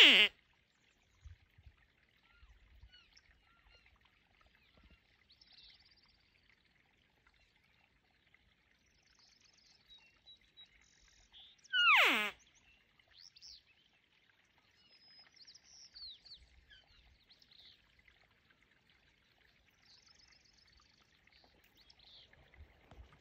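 Cow-elk mew calls: a short call right at the start and another about twelve seconds in, each sliding quickly down from a high squeal to a low note. Faint bird chirps come in between.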